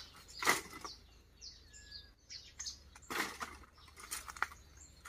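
Dry leaf litter and dead twigs crunching and crackling in a few short bursts, from footsteps and the handling of dry sticks on the ground.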